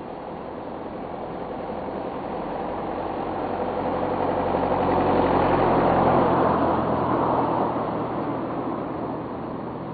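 A motor vehicle passing by: a steady rumble with a low engine hum swells to its loudest about six seconds in, then fades.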